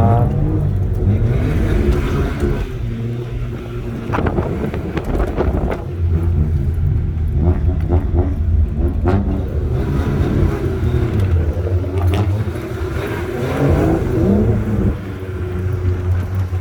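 Car engine running steadily at low speed, with its note rising and falling a little as the car is driven, and a few sharp knocks along the way.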